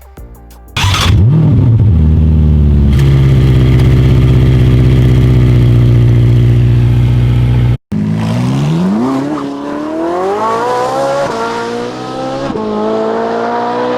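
Ferrari engine sound effect: the engine starts about a second in and idles steadily. After a brief cut it accelerates hard, its pitch rising through the gears, with three upshifts where the pitch drops.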